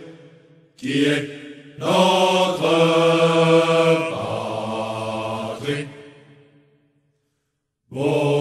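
Male military chorus singing a slow marching song in long, held notes. The voices fade out about six seconds in and, after a second of silence, start again near the end.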